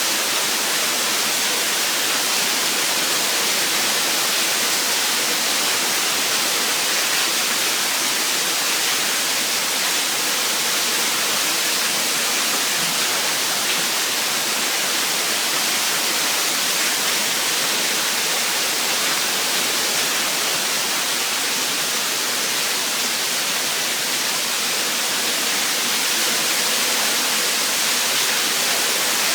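Torrential rain pouring down in a steady, unbroken hiss.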